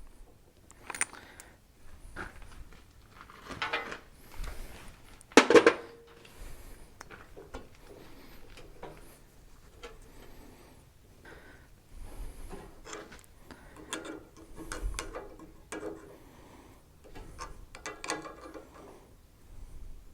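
Hand tools and steel parts clinking, scraping and rattling as a cotter pin is worked out of the tractor's steering linkage. One sharp metal clank with a brief ring about five seconds in is the loudest sound.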